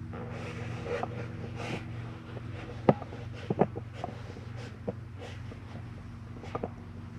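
A steady low mechanical hum with several even tones. Over it come a few sharp clicks and knocks, the loudest about three seconds in.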